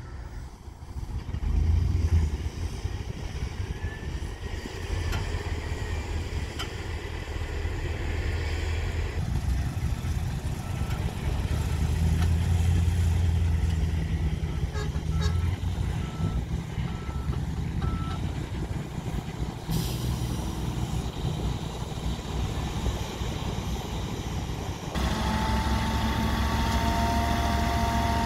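Diesel engine of a loaded dump truck labouring in soft sand, rising in repeated surges as it strains to move. A reversing beeper sounds in short, evenly spaced beeps for several seconds mid-way. Near the end the sound changes abruptly to a steadier truck engine with a held whine while a tipper raises its bed to dump sand.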